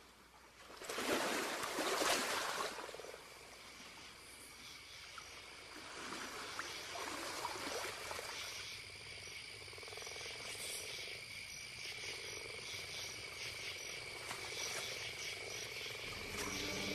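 Night ambience of crickets and frogs: steady high insect trills throughout, with a loud rush of noise about a second in that lasts a couple of seconds.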